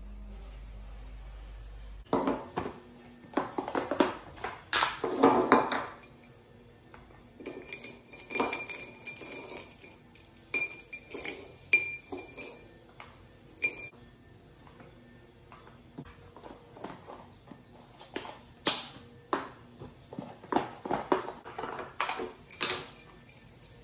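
Small hair clips, elastics and jewellery clicking and clinking as they are handled and dropped into small plastic storage containers, in irregular clusters of taps. A steady low hum stops about two seconds in.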